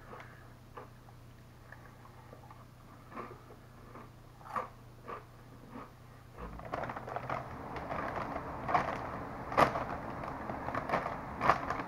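A person biting and chewing thick ridged Ruffles Double Crunch potato chips. Scattered light crunches give way to denser crunching about halfway through, with a few loud sharp snaps near the end.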